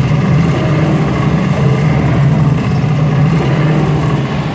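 Pregame show soundtrack over an arena PA: a loud, steady, engine-like low rumble that eases off slightly near the end.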